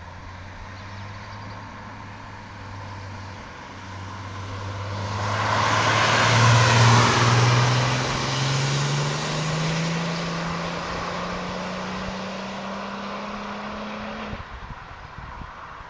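A turbocharged VW Vento with an R32 3.2-litre VR6 engine accelerates past, its engine note rising steadily for about ten seconds. It is loudest as it goes by, about seven seconds in, then cuts off suddenly near the end.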